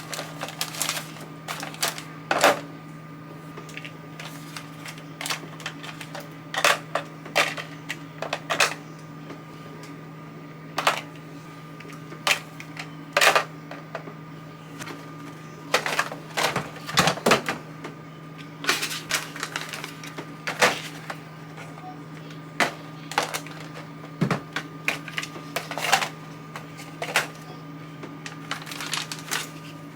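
Small toiletries and plastic items clicking and knocking irregularly as they are handled and packed into plastic storage containers, over a steady hum.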